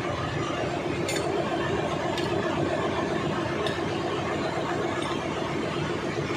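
Steady drone of ship engine-room machinery, with three short sharp clinks over the first four seconds, as from tools on the metal of the fuel oil pump being worked on.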